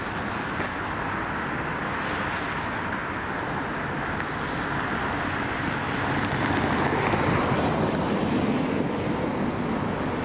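Steady rumbling vehicle noise that swells slightly in the second half.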